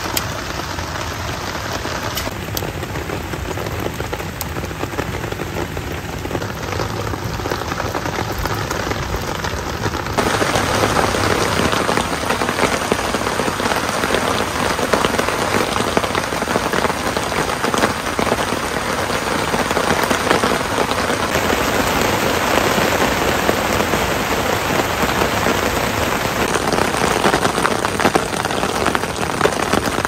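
Steady rain falling, heard from under a camping tarp; it gets louder about ten seconds in.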